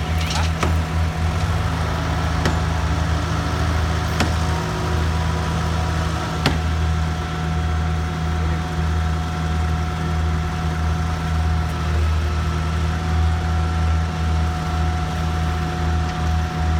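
Concrete boom placer's engine running steadily, a low drone with a faint steady whine above it, broken by a few sharp knocks.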